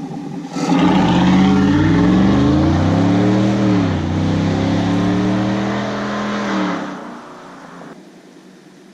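2020 Silverado 1500's 6.2-litre V8 being run up through a Corsa Sport stainless cat-back exhaust. The pitch climbs, dips about halfway through and climbs again, then the sound falls off sharply about two seconds before the end and stays low.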